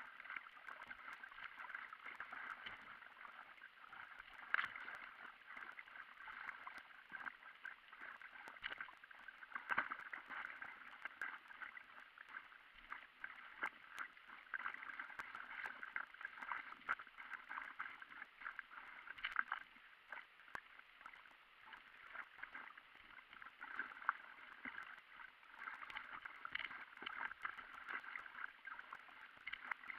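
Water splashing and gurgling as an inflatable stand-up paddleboard is paddled along a river: a continuous wash of small splashes and drips with frequent short, irregular clicks.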